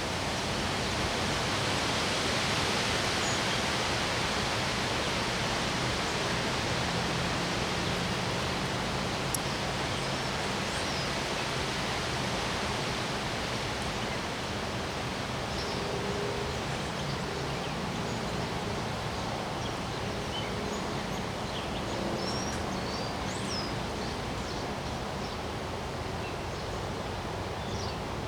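Wind blowing steadily in a continuous rushing noise, swelling in a gust a couple of seconds in and easing off a little later, with a few faint high chirps.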